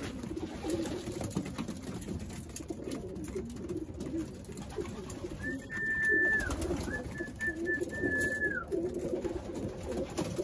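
Racing pigeons cooing over and over, with light clicks of beaks pecking grain from the feeders. Around the middle come two high, steady whistle-like tones, the second longer, each dropping away at its end.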